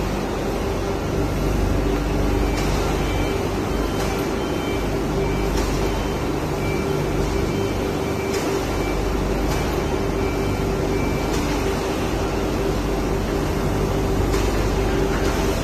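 Steady droning hum of factory machinery, with a constant mid-pitched tone over a low rumble and a few faint clicks.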